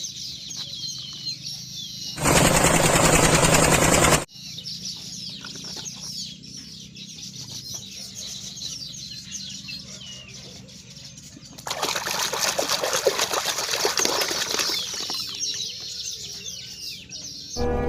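Small birds chirping throughout, broken by two loud bursts of hissing noise: one about two seconds in lasting about two seconds, another starting near twelve seconds and lasting about three seconds.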